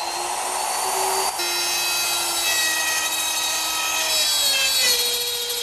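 Router cutting dovetails in an oak board held in a dovetail jig: a steady motor whine with the hiss of the bit in the wood, its pitch sagging slightly under load near the end before it stops.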